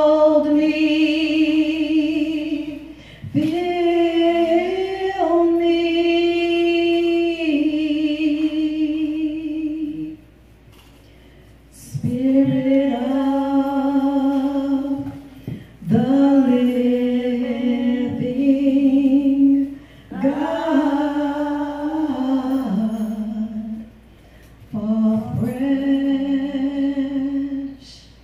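A woman singing solo and unaccompanied into a microphone: long held notes in phrases, with a pause of about two seconds near the middle.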